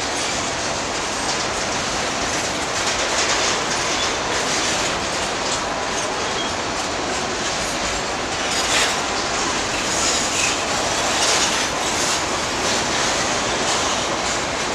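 Freight train of boxcars rolling past at close range: a steady rumble of steel wheels on the rails, with repeated clicks and knocks as the wheels pass over the track.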